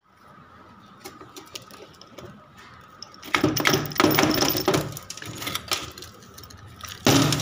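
Metal parts of a dismantled starter motor clicking, clattering and scraping as they are handled on a workbench: a few faint clicks at first, then busier and louder handling noise from about three seconds in.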